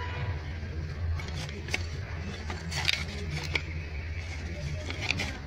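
Thin scrap wood slats clacking and knocking together as they are picked out of a pile by hand, with five or so sharp clacks spread through, over a steady low hum.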